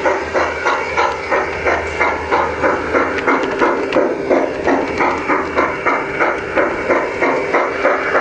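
G-scale garden railway steam locomotive chuffing steadily, about three chuffs a second, each chuff a short hiss.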